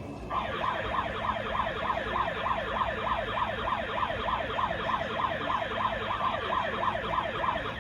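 Handheld megaphone's built-in siren sounding in a fast yelp, about three sweeps a second, each dropping quickly in pitch. It starts a moment in and cuts off just before the end.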